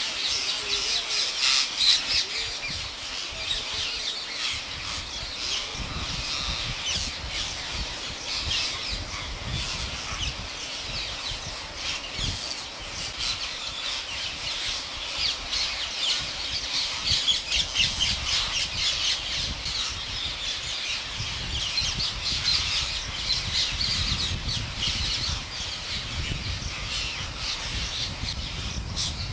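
Green parrot squawking and chattering continuously, a dense run of rapid, high calls.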